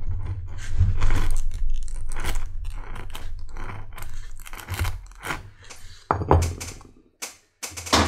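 Round leather knife slicing through a leather belt strap, cutting the curved point at the strap's end in a run of short crunching, scraping strokes with dull bumps against the bench. A couple of sharp knocks come near the end.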